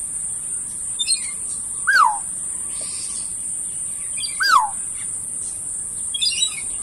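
Birds calling: two clear whistled notes, each rising then falling, about two and a half seconds apart, with short high chirps in between, over a steady high-pitched hiss.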